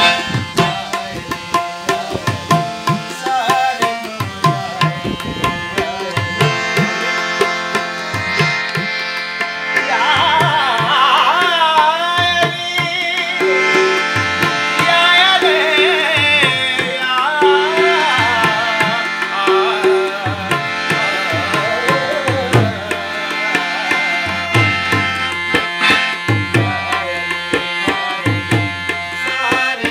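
Tabla and harmonium playing a qawwali-style devotional piece. The harmonium holds steady notes under a busy tabla rhythm, and from about ten seconds in until about twenty-two seconds a man's voice sings a wavering, ornamented melody over them.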